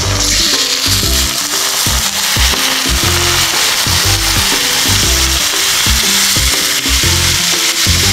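Yogurt-marinated mutton sizzling loudly in hot oil and ghee with half-fried onions in a kadai. The sizzle jumps up right at the start as the meat goes in, then holds steady. Background music plays under it.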